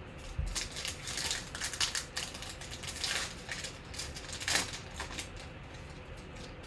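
Foil wrapper of a Panini Prizm football card pack crinkling and crackling as it is handled and torn open, dying down about five seconds in.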